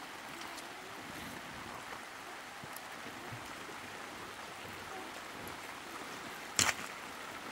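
Steady rain hiss, with one sharp click or tap about six and a half seconds in.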